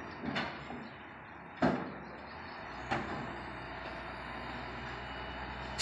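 A few scattered knocks and clanks: two close together near the start, the loudest about a second and a half in, another near three seconds. A steady low engine rumble sets in a little before the middle and carries on.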